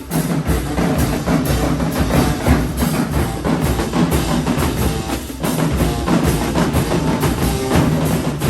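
Marching band playing, with the drums to the fore: bass drums and snares beating steadily under held brass notes. The music drops briefly about five seconds in, then comes back in full.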